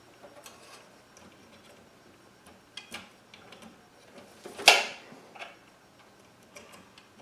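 Small plastic clicks and taps of hard drive cable connectors being handled and plugged in inside a computer case, with one sharper click about halfway through.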